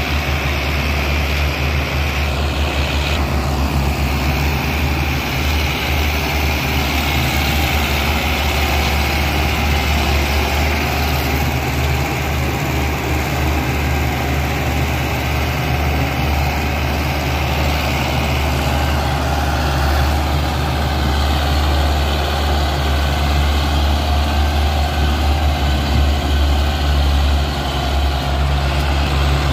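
Belarus tractor's diesel engine running steadily under a heavy towing load.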